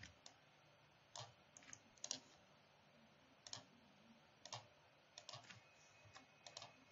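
Faint, scattered clicks of a computer mouse and keyboard, about a dozen at irregular intervals.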